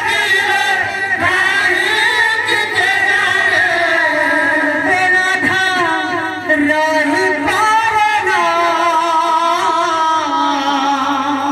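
Men singing an Odia kirtan, a devotional song, together in long held notes that waver in pitch.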